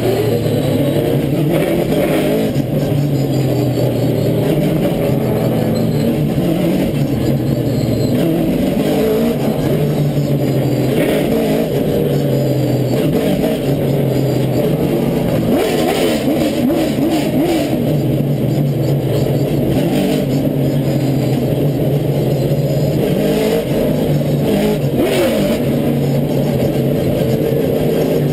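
Stock car V8 engines at racing speed, heard close up from the race car's rear bumper: the engine note rises and falls every few seconds as the cars lift into the turns and accelerate onto the straights, with other race cars running nose to tail.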